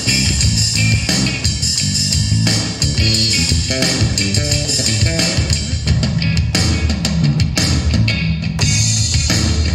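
Electric bass guitar played with the fingers: a quick run of plucked notes with sharp string attacks.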